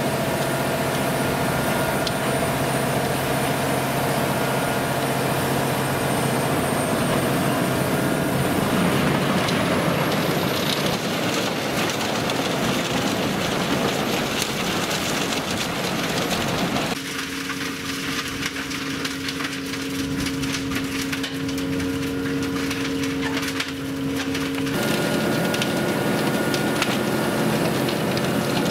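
Tractor-driven Eschlböck Biber 92 mobile drum chipper chipping tree wood, cracking and splintering over the steady drone of the Claas Xerion 4000's engine. For several seconds past the middle the crackling drops away and it settles to a steadier hum before the chipping noise returns.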